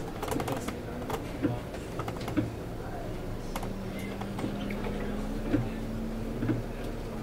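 Cab sound of a Scania City Wide bus: a steady low drivetrain hum, with a tone that rises slowly in pitch from about halfway through as the bus pulls forward, and scattered sharp clicks and ticks throughout.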